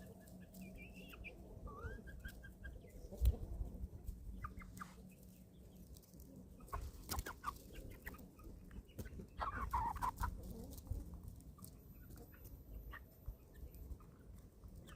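Young chickens, about eleven weeks old, clucking with short, rising calls. There are scattered sharp clicks and taps in between, and a louder burst of calls about ten seconds in.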